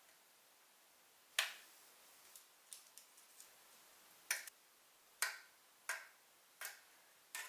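A sharp knife scoring lines into a sheet of dough, heard as about ten short, sharp clicks at irregular intervals, the first the loudest.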